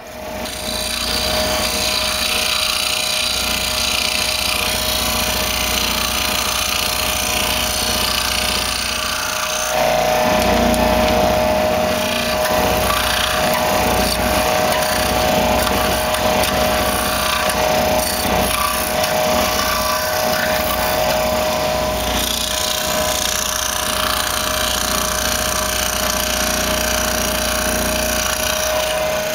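Benchtop scroll saw running and cutting a curved outline in a thin wooden board, a steady machine noise with a constant hum. It starts up at the very beginning and grows a little louder about ten seconds in.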